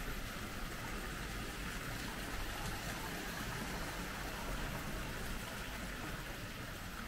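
Water pouring from stone spouts into a stone bathing pool: a steady splashing rush.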